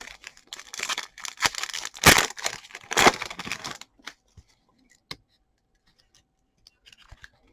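A trading card pack wrapper being torn open and crinkled for a few seconds, followed by a few light clicks of cards being handled.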